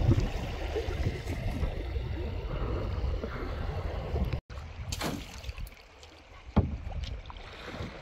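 Wind rushing over the microphone and water sloshing as a small boat moves along a river. The sound cuts off abruptly about four and a half seconds in, then comes back quieter with a couple of sharp knocks.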